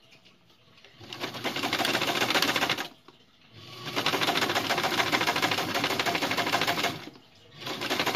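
Electric sewing machine stitching through fabric in three runs with short pauses between them, each run picking up speed as it starts; the first begins about a second in.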